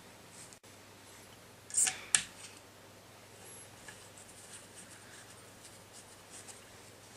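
Gloved hands handling a CO2 inflator and fitting its head onto a bicycle Presta valve: two sharp clicks about two seconds in, then faint rubbing and small ticks. No gas is released yet.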